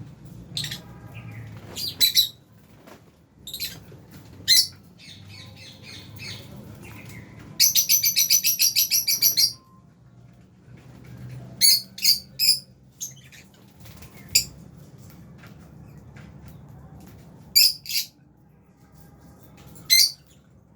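Lovebirds, including Fischer's lovebirds, chirping in sharp, high single calls and short clusters, with a rapid string of chattering calls lasting about two seconds near the middle.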